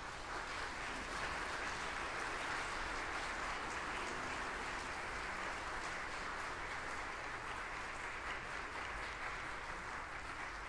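Audience applauding steadily in a church, a dense clapping that stops near the end.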